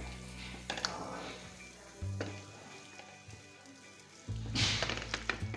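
Wooden spoon scraping and scooping fried potato slices in a non-stick wok, with a few clicks and a louder scrape about four and a half seconds in, over background music.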